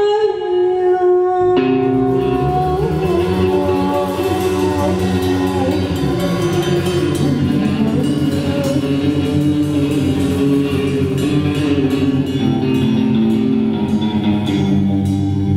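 Live Turkish psychedelic rock band playing, with electric guitar, drum kit and keyboards; the full band comes in about a second and a half in.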